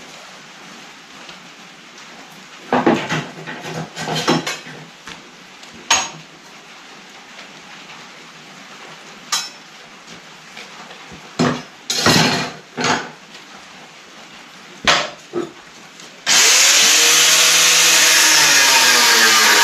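A series of scattered knocks and clatters of steel pieces being handled at a bench. Then, about sixteen seconds in, an angle grinder starts suddenly and grinds steel, its pitch dipping as the disc bites. This is the grinding of bevels on the pieces to prepare them for welding.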